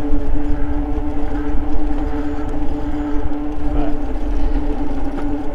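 Eahora Juliet electric bike cruising at a steady speed: a constant hum from the drive and tyres, with wind rumbling on the microphone.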